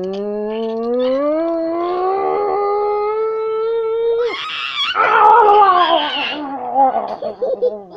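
An adult's long, drawn-out playful howl that rises steadily in pitch for about four seconds, then breaks into a rougher, falling growl for the rest, as in a pretend-to-eat-you tickling game.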